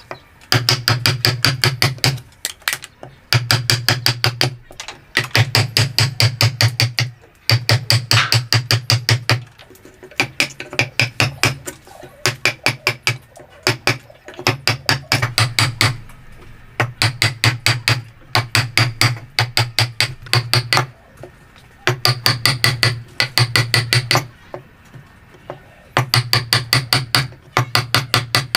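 Hammer blows in quick runs of about seven strikes a second, each run lasting one to two seconds, with short pauses between runs.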